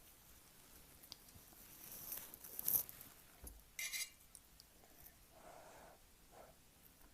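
Close-miked mouth sounds of eating ramen noodles: soft chewing and wet mouth noises, with a louder burst just under three seconds in and another about four seconds in.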